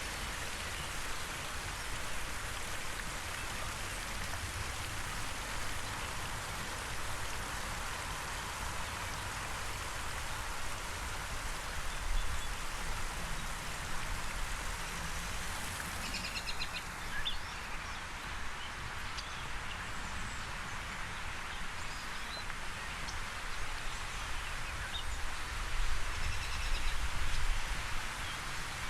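Layered outdoor field recording: a steady hiss, with a few faint bird chirps about halfway through and low rumbles near the end.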